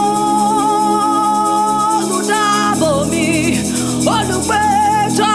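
African gospel praise-and-worship music: a voice holding long notes and wavering runs without words over steady backing chords, with a shaker keeping the rhythm.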